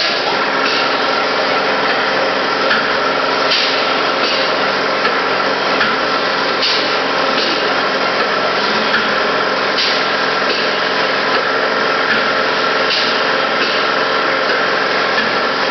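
Polyurethane spray foam rig at work: a steady machine hum under the hiss of the high-pressure spray gun, with the hiss flaring briefly every second or few seconds.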